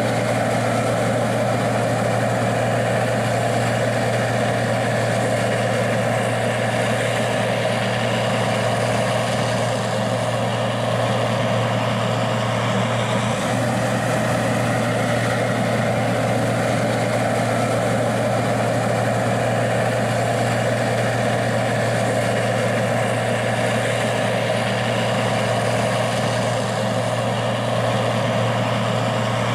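Gleaner R60 combine's diesel engine running steadily, with a constant low hum.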